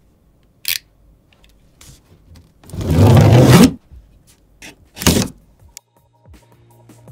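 Utility knife slicing through the packing tape along a cardboard box's seam: one loud scraping cut about a second long, after a sharp click and followed by a second short cutting sound. Electronic music begins near the end.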